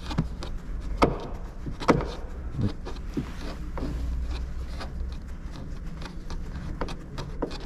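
Torx screwdriver working the screws out of a car's rear door panel: a few sharp clicks and knocks of the tool against metal and plastic, the loudest about one and two seconds in, with light scraping between them over a low steady rumble.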